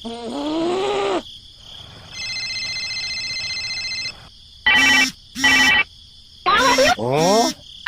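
A string of electronic sound effects: a sliding tone, then a steady trilling ring for about two seconds, two short beeps, and two quick rising sweeps near the end.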